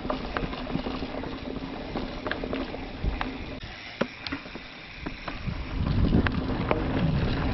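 Mountain bike riding over a dirt trail: tyres running on the ground with scattered clicks and rattles from the bike, and a steady low hum. A louder low rumble of wind on the microphone builds about two-thirds of the way through.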